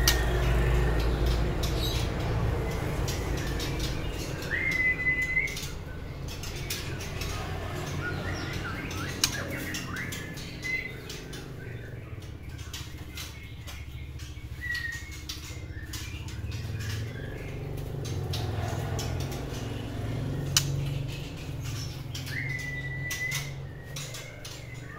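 White-rumped shama in a wire cage giving a few short, level whistled notes, four times, with wing flaps and sharp clicks from its hopping and landing on the cage.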